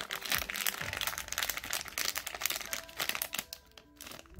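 Foil blind bag crinkling and crackling as hands tear it open. The crackle thins out about three seconds in.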